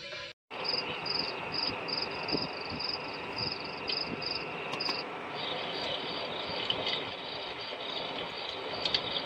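Recorded cricket night-ambience sound played through an alarm clock's speaker: a steady hiss with regular high chirping, about three chirps a second. It starts after a brief gap about half a second in, and the chirp pattern changes after about five seconds.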